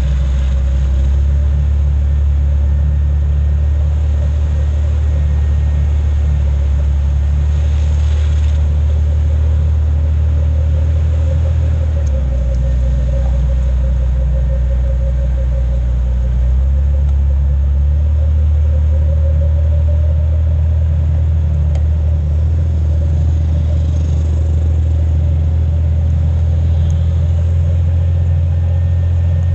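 Jeep Cherokee driving across sand, its engine and tyres making a steady low drone heard close up from the side of the vehicle. The drone shifts slightly a couple of times around the middle.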